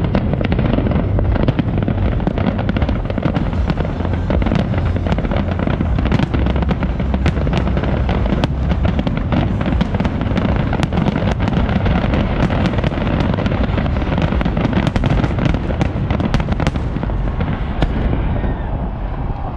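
Aerial firework shells bursting in quick succession: a continuous low booming rumble under dense, sharp crackling. The crackle thins out in the last couple of seconds.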